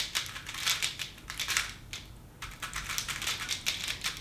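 Plastic speedcubes being turned fast: rapid clicking and clacking layer turns in quick bursts with brief pauses between them.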